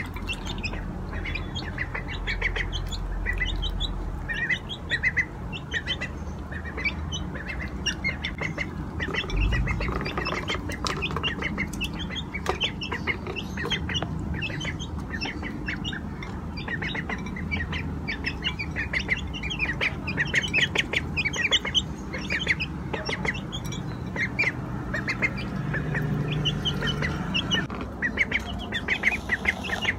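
Young ducks peeping over and over in short, high calls as they feed.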